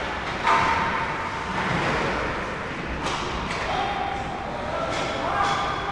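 Ice hockey play in a rink: sharp knocks of sticks and puck over a steady rink noise, with short shouts from players.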